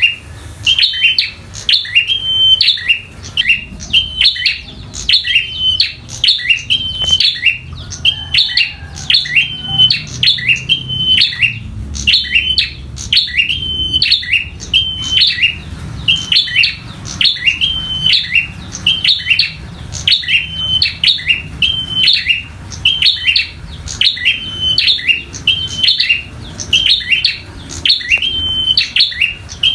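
Prinia (prenjak) giving its sharp, repeated fighting call, one identical phrase about every second without pause.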